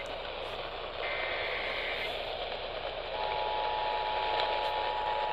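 AM radio reception with heavy hiss. About a second in, a brief buzzy data burst from the Emergency Alert System's digital header is heard. From about three seconds the steady two-tone EAS attention signal begins, announcing an emergency alert, here a flash flood warning.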